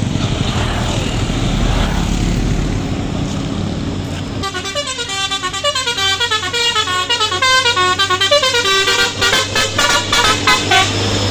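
Truck engines and traffic pass. About four seconds in, a truck's multi-tone musical horn (an Indonesian "telolet" horn) starts playing a quick run of stepping notes for several seconds, ending in short rapid blasts.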